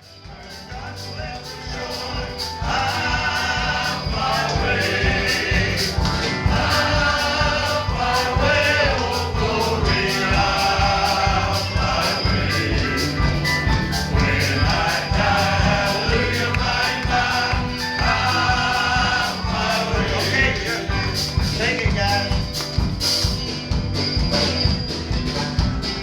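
Gospel quartet singing in close harmony over instrumental backing with a steady beat, fading in over the first few seconds.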